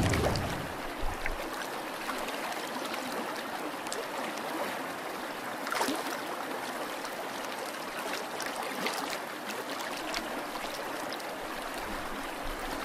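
Water trickling steadily with a few faint clicks as a cardboard model ship slowly takes on water and sinks.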